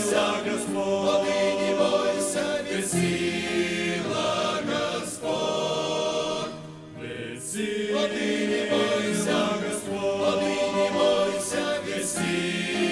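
A choir singing a Christian song, with a short break between phrases about seven seconds in.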